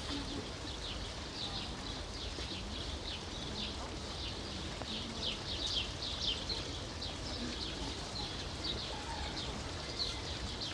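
Small birds chirping: many short, high, falling chirps, several a second, over a steady low background hum.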